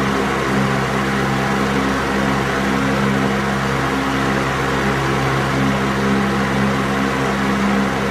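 Electric fan running steadily: a constant rush of air over a low motor hum that wavers slightly in strength.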